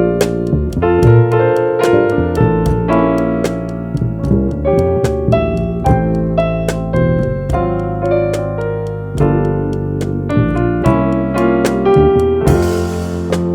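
Jazz trio playing: keyboard chords and melody over a bass line, with drums keeping time in light regular taps. A brief cymbal wash comes near the end.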